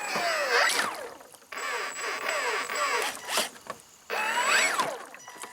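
Electric motor of a radio-controlled model whining in three throttle bursts, its pitch falling and rising sharply within each burst.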